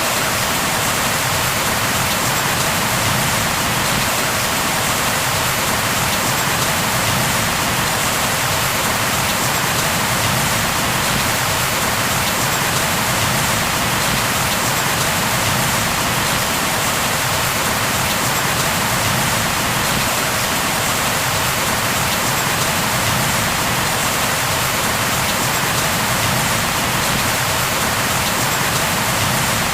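Steady, heavy rain falling and pattering on surfaces, an even hiss that does not change.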